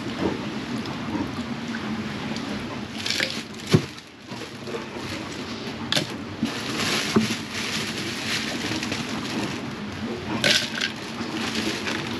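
Almond milk pouring from a carton into a plastic blender jug, then knocks and rustles as cartons, a spoon and a cup are handled over the jug, with one sharp knock about four seconds in. A steady rushing noise lies underneath.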